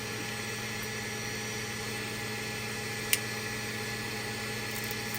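Steady machine hum with one sharp snip about three seconds in, from cutting a piece off a 3D-printed plastic part.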